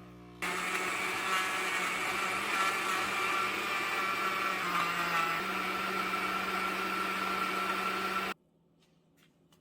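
Electric blender motor running steadily, starting about half a second in and cutting off suddenly near the end.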